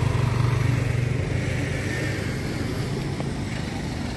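Motor scooter engine running close by as it pulls away, loudest over the first second and a half and then easing off.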